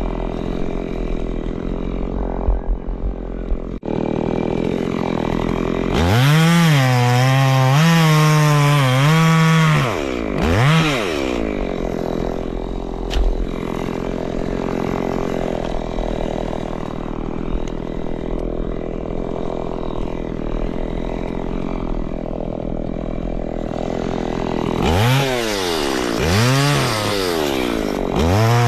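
Two-stroke chainsaw idling, then revved up hard for about four seconds with the pitch dipping and recovering, given a short blip, and dropped back to idle. It is revved up again near the end.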